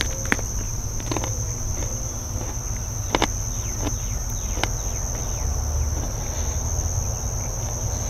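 Insects trilling steadily at a high pitch, with a few short crisp crunches, the loudest about three seconds in, as a pepper is bitten and chewed.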